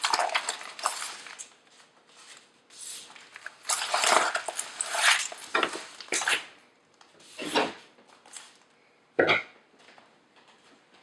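A parcel being unpacked by hand: irregular rustling, scraping and light knocks of packaging, in clusters with short pauses.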